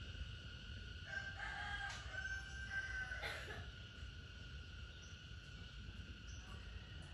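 A rooster crowing once, a drawn-out crow starting about a second in and lasting about two seconds, over a steady background drone of insects.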